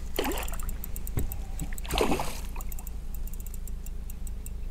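A hooked trout splashing at the water's surface twice, briefly about a quarter second in and again about two seconds in, as it is played on a spinning rod. Faint ticking from the spinning reel runs underneath.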